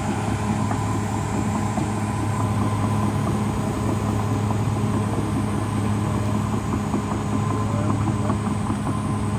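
Caterpillar D6R XL bulldozer's diesel engine running steadily, a low even drone that holds at one pitch and level.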